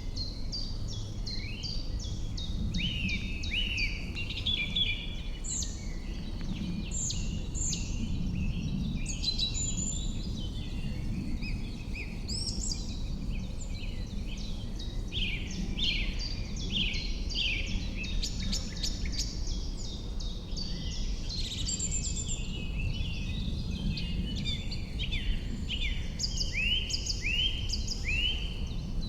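Several birds singing and calling at once, a dense run of short chirps and down-sweeping notes throughout, over a steady low rumble.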